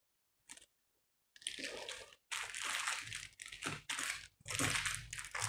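Plastic packaging crinkling in irregular bursts as it is handled, starting about a second and a half in.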